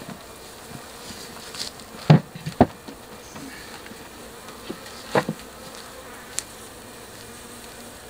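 Honeybees of an African honeybee colony (Apis mellifera scutellata) buzzing steadily around their hive. A few sharp knocks sound about two seconds in, again just after, and about five seconds in.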